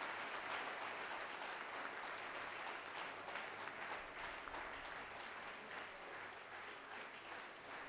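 Crowd applauding: many people clapping, the applause slowly dying away.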